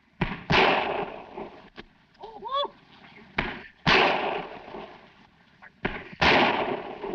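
Three gunshots about three seconds apart, each a sharp blast with a short echoing tail and a small click just before it. A brief voice-like call comes between the first two shots.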